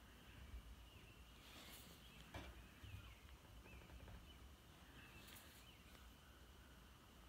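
Near silence: faint outdoor ambience with a low rumble, a few faint distant bird chirps, and a few soft rustles around two seconds in and again near five seconds.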